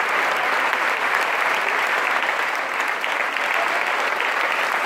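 A large theatre audience giving a standing ovation: dense, steady applause from hundreds of people clapping at once, with a few voices faintly mixed in.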